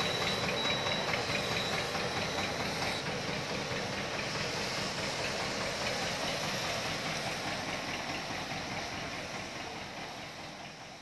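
Tractor engine running steadily while it powers a disinfectant sprayer, with the hiss of the hose spray. The sound fades gradually near the end.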